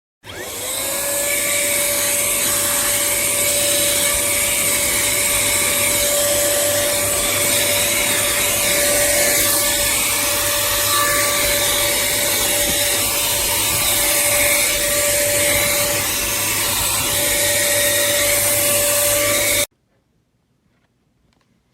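Cordless handheld vacuum cleaner motor spinning up with a short rising whine, then running steadily with a high, even whine and rushing air before cutting off suddenly near the end.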